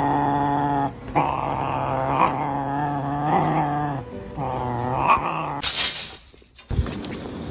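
A pet animal growling in a run of long, drawn-out calls: one steady low call, then three wavering ones with short breaks between. A brief sharp burst of noise follows about six seconds in.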